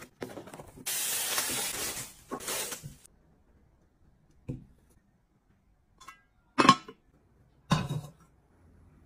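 A hissing rush lasting about two seconds, then four short, separate knocks or clinks spread over the next few seconds, from objects being handled.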